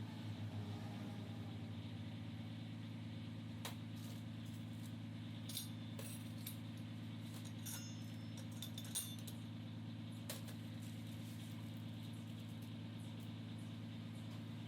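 Scattered light metallic clinks and clicks of small metal parts being handled, most of them in the middle, over a steady low machine hum.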